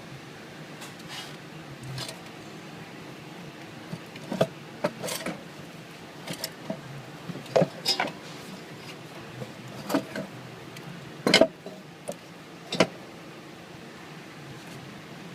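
Scattered sharp metallic clicks and clanks of hand tools working on engine parts, about a dozen irregular knocks over a steady low hum.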